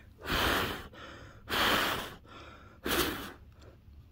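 A person blowing hard onto a heater cartridge and its temperature probe to cool them, three separate breaths of rushing air, each under a second long.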